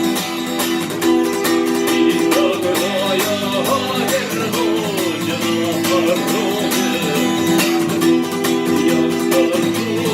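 Acoustic guitar strummed in a steady rhythm under held notes and a wavering melody line: an instrumental passage of a song, with no lyrics sung.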